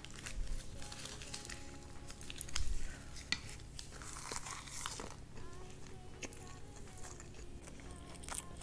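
A crisp sheet of dried seaweed crinkling in the hands, then crunching bites and chewing of a seaweed-wrapped mouthful of fried rice.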